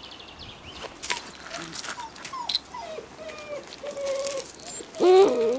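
Giant schnauzer puppy whining: a series of short, thin, falling whimpers, then a louder wavering whine near the end.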